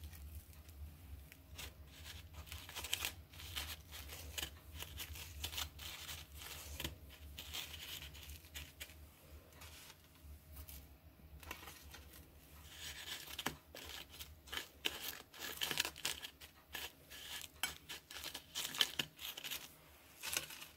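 Gritty scraping and rustling of fried bread slices (torrijas) being pressed and turned in granulated cinnamon sugar on a ceramic plate, with small clicks as they are set down. It comes in two spells, with a lull in between.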